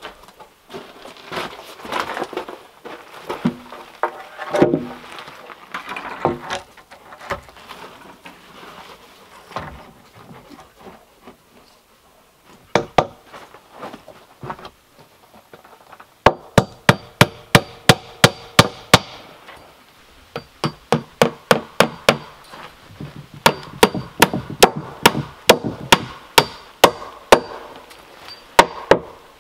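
A hand hammer strikes in quick runs of about four blows a second, each blow with a bright metallic ring. The hammering fills the second half. Before it come scattered knocks and bumps from a heavy wooden timber being handled.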